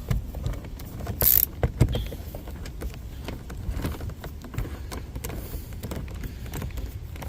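Irregular clicks, taps and light rattles of hand work on a truck's interior door panel and its fasteners, with a louder scrape about a second in and a knock shortly after.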